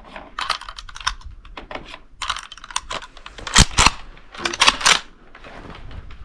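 Quick, irregular metallic clicks and clacks of 8mm Mauser cartridges and rifle parts being handled while the rifle is loaded, with a couple of sharper clacks in the middle.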